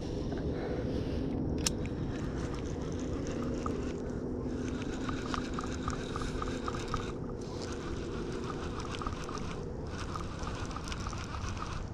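Fishing reel being cranked in on a retrieve, a rapid even ticking of its gears with a few short pauses.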